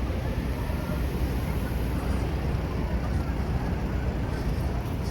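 Steady low rumble of wind buffeting the microphone, over a general city street noise.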